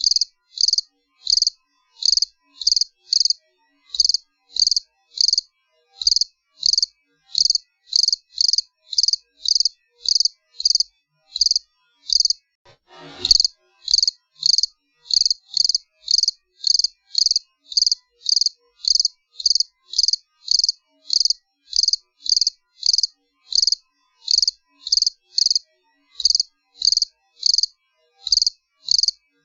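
Cricket chirping in a steady series of short, high-pitched chirps, about two to three a second, with silence between them. A brief faint noise about halfway through.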